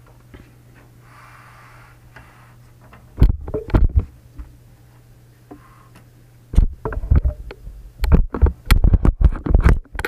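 Knocks and rattles of a case fan being handled and fitted against a computer case, in a short cluster about three seconds in and a longer run of knocks through the last few seconds, over a steady low hum.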